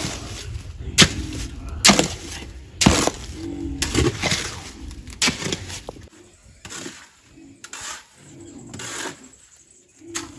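Five sharp knocks or cracks, about one a second, over a low rumble, followed by fainter scattered knocks for the rest of the time.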